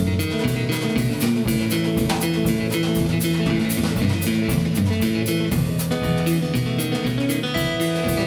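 Fingerpicked steel-string acoustic guitar, a Martin 00-28, playing an instrumental tune with a drum kit keeping a steady beat behind it.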